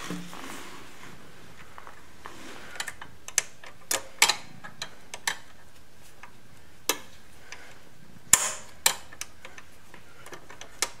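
Scattered, irregular metal clicks and taps as the CB750's brake pedal linkage, the rod and pin at the pedal, is pushed and wiggled into place by hand.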